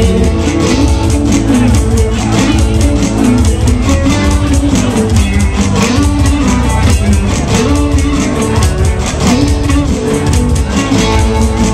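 Live rock band playing an instrumental passage with no vocals: a guitar line over bass and drums, with a steady, busy beat.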